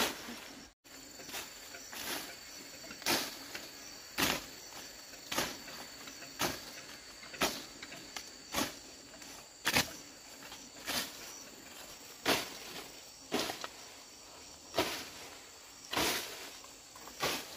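Repeated strikes of a hand tool such as a hoe into the ground, about one a second, steady and even. Insects chirp steadily underneath.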